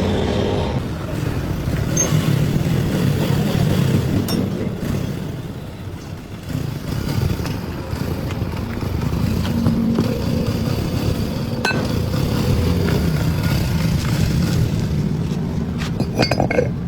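Motor vehicle engines running, with the scattered clicks and clatter of street traffic.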